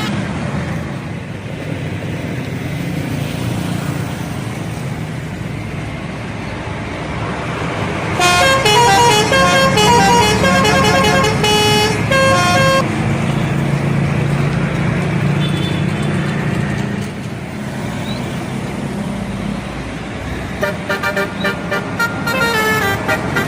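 Bus telolet horn, a set of air trumpets played in sequence, tooting a quick melody of changing notes for about four seconds starting near eight seconds in, then another run of rapid toots near the end, over the steady running of a bus engine.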